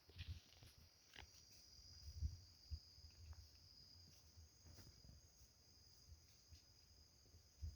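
Faint, steady high-pitched trilling of insects such as crickets, with a few soft clicks and low thumps.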